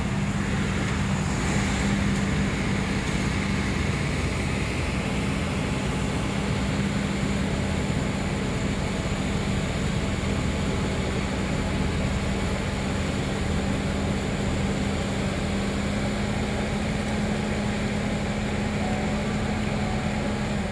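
Rotary snowplow running steadily under load as it blows snow into a dump truck: a continuous diesel drone with a steady low hum and the rush of the blower. Passing cars add to it near the start.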